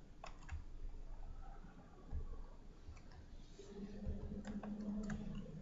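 A few faint computer-mouse clicks at a desk, with a faint low hum from about four seconds in.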